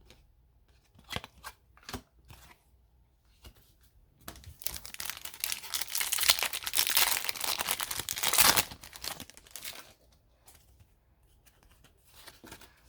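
A hockey card pack's foil wrapper being torn open and crinkled: about five seconds of ripping and rustling in the middle, with a few light ticks before and after.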